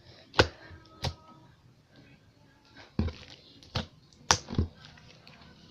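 Slime being squeezed and pressed by hand, giving about six sharp little clicks and pops, irregularly spaced, with soft squishing in between; not very loud.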